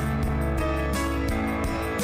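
Instrumental music with strummed guitar over steady held bass notes.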